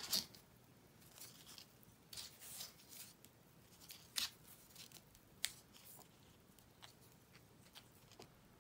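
Fabric ribbon rustling and scraping as hands wind it in a spiral around a thin tube. The sound is faint and scattered, with a few sharper swishes: one about four seconds in and one about five and a half seconds in.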